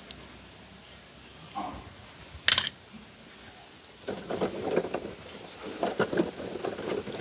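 A die-cast toy car dropped into a tub of water, one sharp plop about two and a half seconds in, followed from about four seconds on by water sloshing and splashing irregularly.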